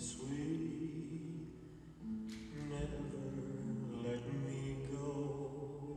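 Slow vocal music: several voices hold long, overlapping notes that change pitch every second or so, in a chant-like way. A brief hiss comes about two seconds in.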